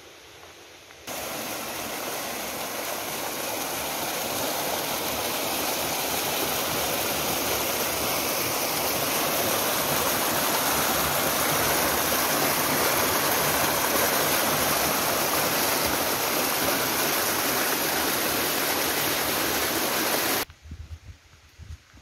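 Water pouring down a small concrete outlet, a loud steady rush. It starts abruptly about a second in and cuts off sharply near the end.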